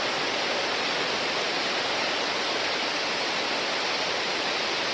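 Steady rushing noise, even and unbroken throughout.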